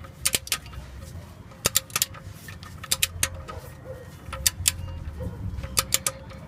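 Ratchet of a click-type torque wrench clicking as the oil drain plug is tightened toward 29 ft-lb: sharp clicks in small clusters of two or three, about once a second, with each wrench stroke.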